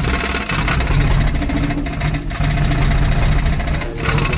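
Suzuki Carry DA63T engine idling after a start, its low running dipping briefly a couple of times. The mechanic expects it to stall and puts the hard cold starting down to valve clearances set too tight, so it loses compression.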